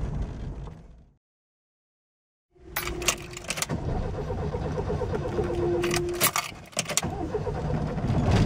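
After a gap of silence, an old car's ignition key clicks several times as it is turned in its lock, with the bunch of keys on the ring jangling, over the low running noise of the car.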